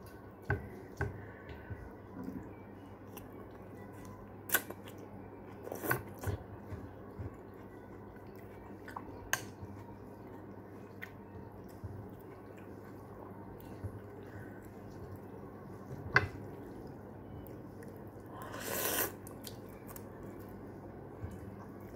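Someone eating instant noodles: a metal fork clicks and scrapes against a ceramic bowl, with scattered sharp clinks. A short slurp of noodles comes near the end.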